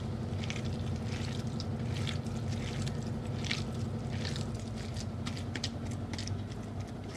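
A hand squeezing and kneading a wet minced-chicken kofta mixture as a dry flour-and-cornflour binder is worked in, making irregular soft squishing and crackling sounds. A steady low hum runs underneath.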